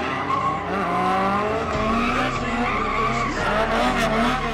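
A car's tyres squealing as it slides under power, the squeal wavering in pitch, with the engine revving underneath.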